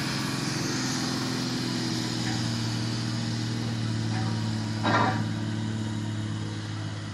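Diesel engine of a 4x4 borewell-drilling-rig truck running steadily as it drives over rough ground, growing fainter as it moves away. A short, loud burst of noise cuts in about five seconds in.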